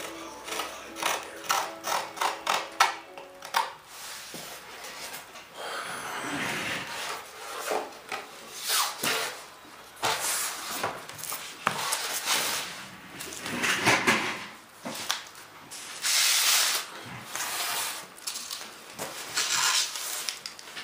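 Single-edge razor blade scraping and trimming the glass cloth and resin along the edges of a fiberglassed RC airplane wing panel. It opens with a quick run of short strokes, several a second, then goes on in longer scraping strokes roughly a second apart.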